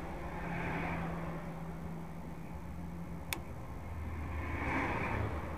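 A car's engine running and road noise, with a steady low hum that steps down in pitch a little over three seconds in, where a single sharp click sounds.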